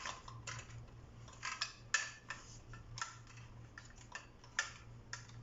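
Parts of a ring light stand clicking and knocking irregularly as they are handled and fitted together, with two sharper knocks about two seconds in and near the end.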